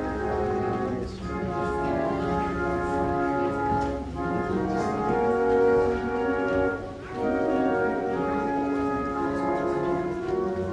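Organ playing a hymn introduction before the congregation sings: slow, held chords that change every few seconds.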